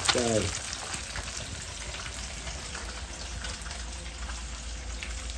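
Food frying in hot oil in a pan: a steady sizzle with faint scattered crackles.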